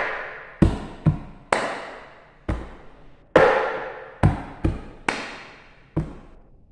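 Cup-rhythm pattern played on an upside-down plastic cup and a wooden tabletop: the hand taps the cup, the cup is set down on the table, each hand slaps the table and the hands clap. About nine sharp knocks and claps come in a steady repeating pattern, each with a short ring.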